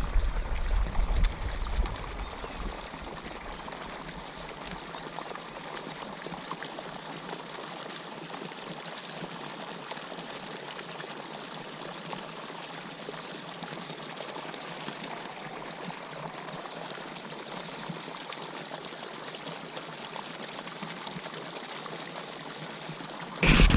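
Steady rush of water pouring into a pond from an inflow, with faint short high chirps over it. A low rumble sounds for the first two seconds, and there is a loud knock near the end.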